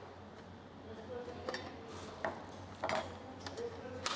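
A few light clicks and taps of hard plastic and metal as the detachable holder on a Mahlkonig X54 coffee grinder is handled and fitted, about five scattered knocks.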